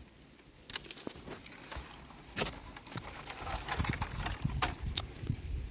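Handling noise from a phone held by a climber in the crown of a coconut palm: irregular knocks, scrapes and rustles as it brushes fronds and nuts, with heavier low thumps in the second half.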